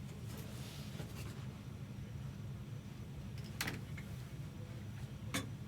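Trading cards and pack wrappers being handled: soft rustling, with two sharp ticks about three and a half and five and a half seconds in, over a steady low hum.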